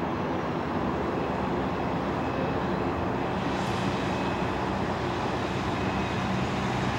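Airport crash-rescue fire truck's diesel engine running steadily as the truck moves slowly, with a constant low hum of engine tones over an even roar.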